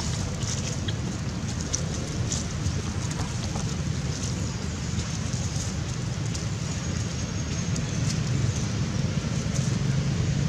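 Dry leaves crackling in quick, irregular ticks as young long-tailed macaques move over leaf litter, over a steady low outdoor rumble.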